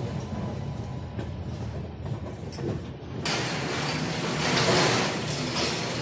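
Passenger train running, heard at an open carriage door: a steady low rumble with occasional sharp wheel clicks. About three seconds in it cuts to louder, noisier station platform ambience beside the train.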